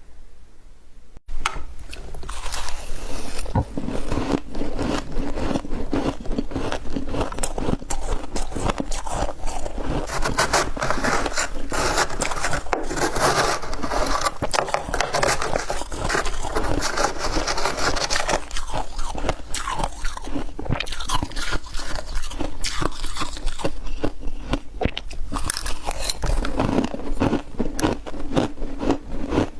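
Crunchy ice being bitten and chewed close to the microphone, with a spoon scraping at the ice; dense crackling crunches start suddenly about a second in.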